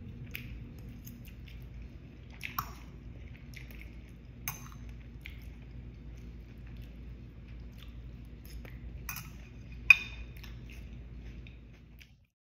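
Metal fork clinking and scraping against a ceramic bowl while eating, with chewing. A few sharp clinks stand out over a low steady hum, the loudest near the end.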